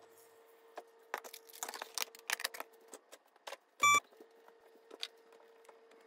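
Small clicks and clatters of plastic ice-maker parts being handled, with a faint steady hum underneath. About four seconds in there is one short, bright ringing tone.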